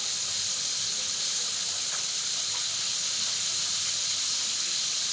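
A steady, even hiss, strongest in the high range, that holds at the same level throughout.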